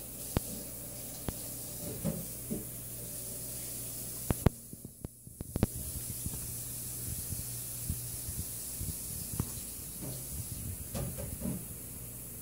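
Dog air licking: short, irregular wet tongue-and-lip smacks and clicks over a steady hiss, with a couple of sharper clicks near the middle. The owners and their vet believe this air licking is a focal seizure.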